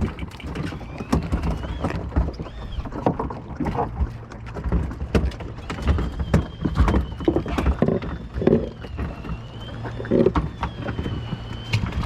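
Fishing boat at sea: a steady low engine hum under irregular knocks and water slapping against the hull, with a faint wavering whine in the second half.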